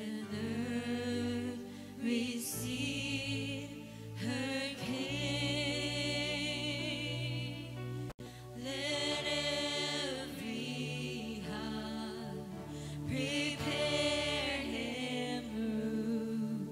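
Live church worship music: a singer holding long, wavering notes with vibrato over steady low held chords. The sound cuts out for an instant about eight seconds in.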